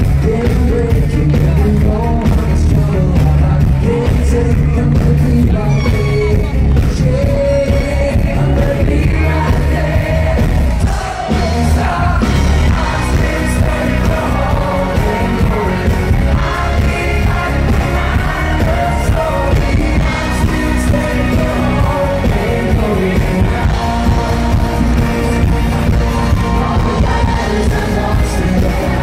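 Live pop song over a stage PA: a male lead singer over a band with a heavy, steady bass and beat.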